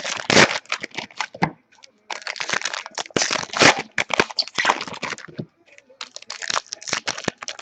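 Foil trading-card pack wrappers being torn open and crinkled by hand, a dense crackling in three runs with short pauses between.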